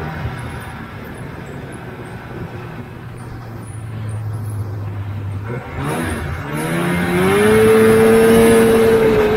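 Two-stroke engine of a 1977 Polaris TX340 snowmobile running at a steady low speed, then about six seconds in revving up, its pitch rising over about two seconds and holding at a higher speed, louder.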